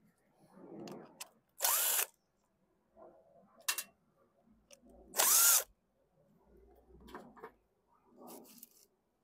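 DeWalt cordless impact driver run in two short bursts of about half a second each, its motor whine rising and falling. Quieter clicks and rattles of small parts being handled come in between.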